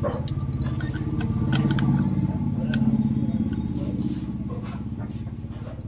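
A small engine running nearby with a pulsing low hum that grows louder and then fades away. A few light clicks and taps come from the scooter's rear wheel as it is turned by hand.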